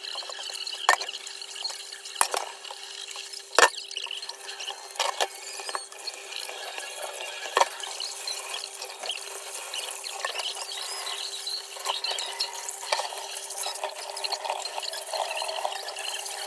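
Clatter of dishes and utensils: a few sharp clinks and knocks, the loudest about three and a half seconds in, over a steady hum.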